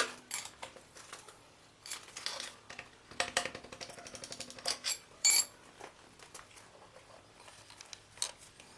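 Scattered metal clinks, taps and knocks of hand tools and engine parts while pistons are being taken out of a diesel engine. One sharp clink about five seconds in rings briefly.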